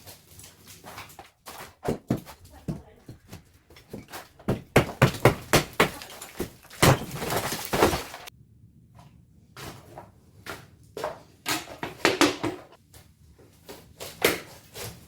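Knocks, thuds and clatter of hand repair work in a room. There is a quick run of strong blows about five seconds in and louder clatter just after. The sound breaks off abruptly for a moment a little past the middle, then scattered knocks go on.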